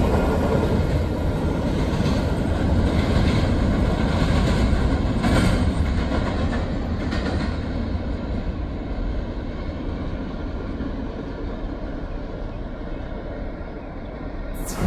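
Freight train of covered hopper cars rolling away on the rails: a rumble of steel wheels with a few clacks, fading steadily as the last cars pull off into the distance.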